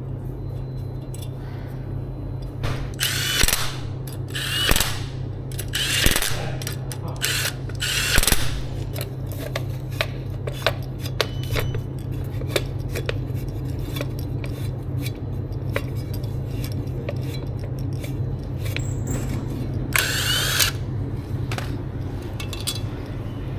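Power drill/driver running in short bursts, several in quick succession and another later, with scattered clicks and taps and a steady low hum underneath.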